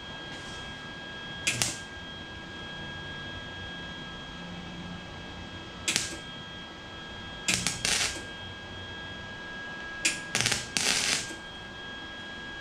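Wire-feed (MIG) welder laying short tack welds on a steel exhaust pipe: several brief crackling bursts, each well under a second, with a cluster of them near the end.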